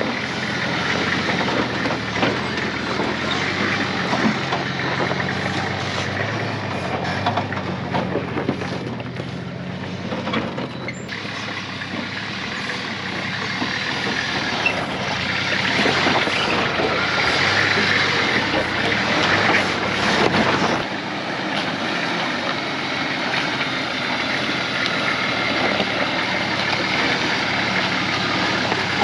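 A four-wheel drive's engine running at low revs as it crawls down a steep, rocky washout, with tyres crunching and scraping over rocks; it gets louder for a few seconds past the middle.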